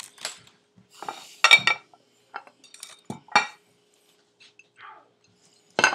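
Objects clinking and knocking against a ceramic dinner plate as things are set down on it: a few separate sharp clinks with a short ring, the loudest about a second and a half in, at about three and a half seconds, and near the end.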